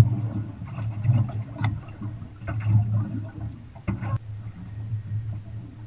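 Water slapping and gurgling against an aluminium boat's hull over a steady low rumble, with a few sharp knocks from inside the boat about a second and a half in and again around four seconds.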